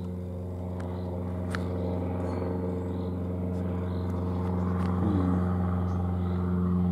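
Steady engine drone with a low, evenly pitched hum that slowly grows louder, with two light clicks about a second in.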